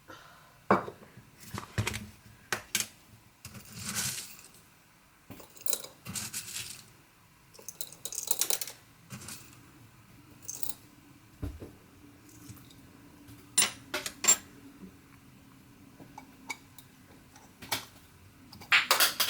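Kitchen clatter: dishes, pots and utensils being handled, with irregular clinks and knocks and a few short scraping or rustling swishes. A faint steady hum runs underneath from about halfway in.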